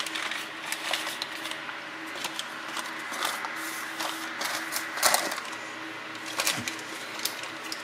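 Baking paper rustling and crinkling in scattered short crackles as a thin sheet of pastry dough is laid over a tart and pressed flat by hand, over a steady low hum.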